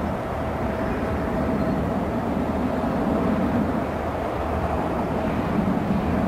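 Boeing 777-300ER's twin GE90-115B turbofans at climb power, a steady rumble with a faint whine, as the airliner climbs out after takeoff.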